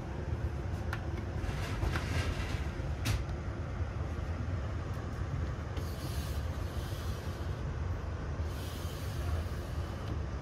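Interior noise of a ČD InterJet passenger coach (Siemens Viaggio Comfort build): a steady low rumble, broken by three short hisses and a single click about three seconds in.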